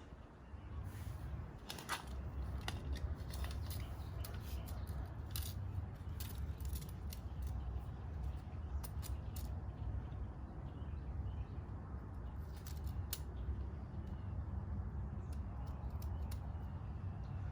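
Scattered light metallic clicks and ticks from hand work on a motorcycle's rear wheel and chain, such as handling tools and a measuring tape, over a steady low rumble.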